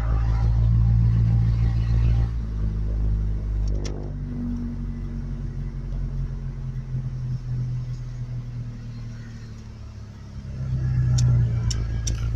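A vehicle engine running with a low rumble, louder for the first couple of seconds, easing off, then rising again near the end, with a few sharp clicks at the close.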